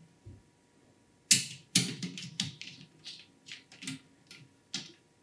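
A run of sharp, irregular clicks and knocks from hard PC parts being handled and fitted while an AIO liquid cooler is installed into a case. The loudest click comes about a second in.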